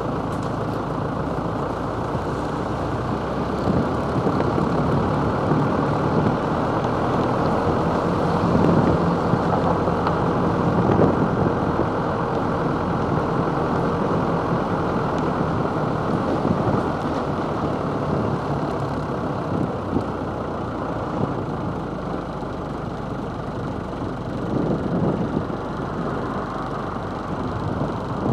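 Camper van driving slowly, its engine running with steady road and tyre noise, heard from a camera mounted on the van's roof.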